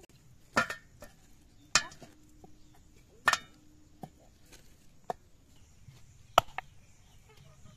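Sharp chops of a heavy blade cutting through goat leg bone on a wooden chopping board: about five separate strikes, irregularly spaced, each a second or more apart.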